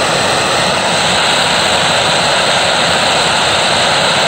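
Gas blowtorch burning with a steady, loud rushing hiss as its flame heats a small steel bolt.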